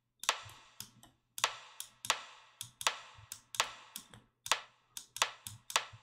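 Synthesized rimshot hits from an FM patch in Ableton's Operator, played about ten times at an uneven pace. Each is a sharp crack with a short tail from a subtle reverb being added as a finishing touch.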